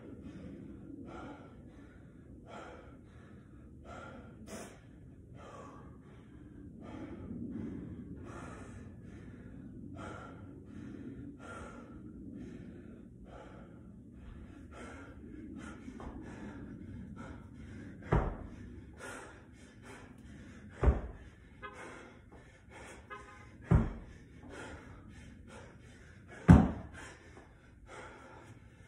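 Heavy, rapid breathing and gasping of an exhausted athlete catching his breath, a gasp roughly every second. A little past halfway, a 50-pound dumbbell starts thudding onto a rubber mat over concrete about every three seconds, one thud per snatch rep; these thuds are the loudest sounds.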